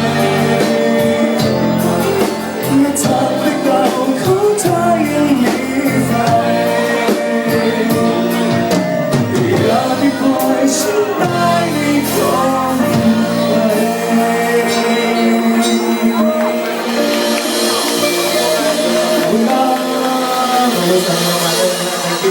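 Thai pop song playing loudly: a singer's voice over a full band.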